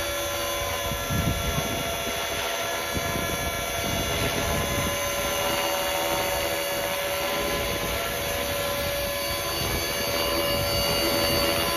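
Electric RC helicopter on Trex 450 mechanics in flight: the brushless motor and gear train whine steadily at several held pitches over the whir of the rotor blades.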